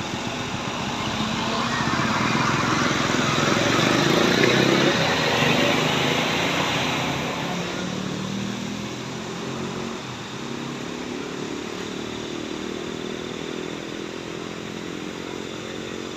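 A motor vehicle's engine running, growing louder to a peak about four to five seconds in and then easing off into a steadier hum.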